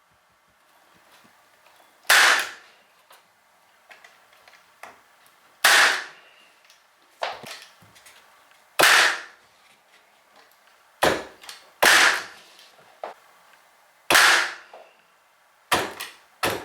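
A pin nailer driving pins into wood, about eight sharp shots at uneven intervals of one to three seconds, each with a short tail.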